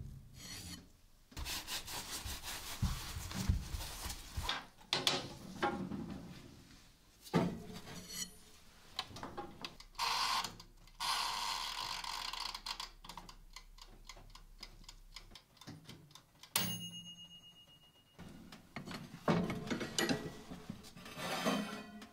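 A string of workshop handling sounds: rubbing and scraping of a cloth against a steel hammer head, the clicks of an oven's timer dial being turned, and a sharp metallic click with a brief high ring about two-thirds through.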